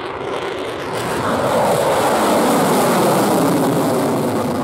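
F-22 Raptor fighter jet climbing away, the rushing noise of its twin turbofan engines swelling about a second in, loudest in the middle, and starting to fade near the end.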